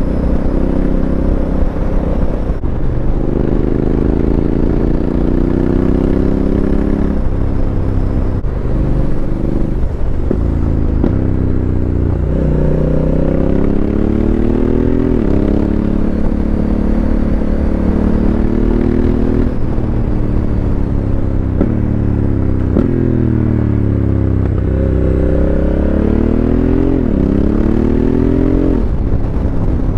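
Honda CRF1100L Africa Twin's 1084 cc parallel-twin engine breathing through a Fuel Exhausts aftermarket exhaust while riding: the engine note climbs through the revs and drops at each gear change, several times over, with wind noise on a helmet-mounted mic.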